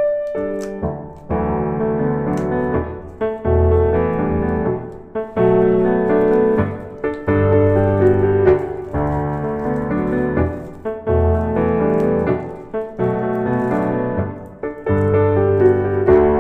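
Background piano music: gentle chords and melody with a steady bass.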